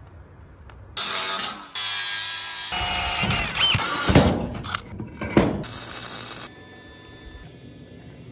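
Metalworking power tools in short, abruptly cut clips, among them a magnetic drill's annular cutter boring a hole through rusty steel square tubing. Near the end it drops to a faint steady hum.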